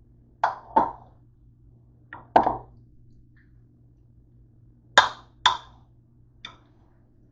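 Spoon knocking and scraping against the side of a bowl while stirring chicken mixed with mayonnaise and mustard: about seven short knocks, mostly in pairs.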